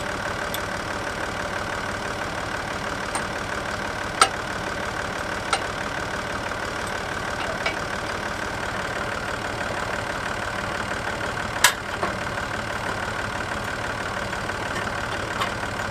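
Massey Ferguson 135 tractor engine idling steadily, with a few sharp knocks about four, five and a half and twelve seconds in, the one near twelve seconds the loudest.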